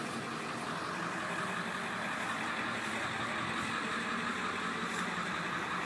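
A Ford 7.3 Power Stroke turbo-diesel V8 idling steadily.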